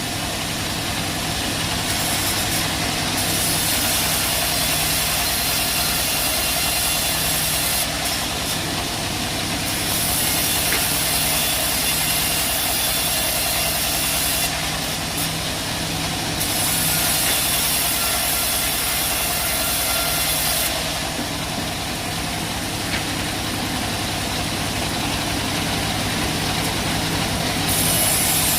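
Bandsaw sawmill running steadily with a low engine hum, while a high hiss comes and goes several times, dropping out for a second or two each time.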